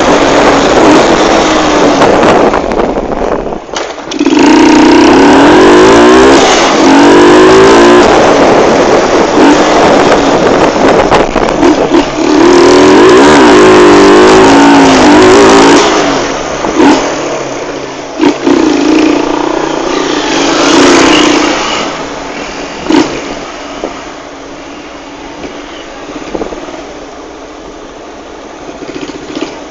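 Motorcycle engine accelerating hard, loud and close, its pitch climbing and dropping back several times as it shifts through the gears. About 22 seconds in it eases off to a much quieter, steady low run as the bike slows.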